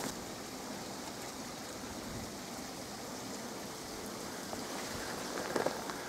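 Steady, even rush of water with no distinct splashes or knocks.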